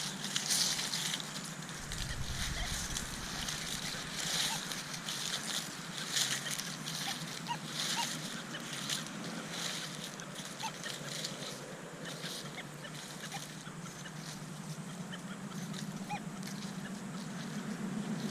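Nokta Legend metal detector sweeping over ground full of iron nails, giving a continuous low, grunting iron tone. Over it come irregular crunches of very dry leaves and moss under the coil and boots.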